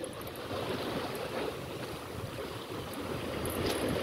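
Sea surf washing steadily against the concrete breakwater blocks.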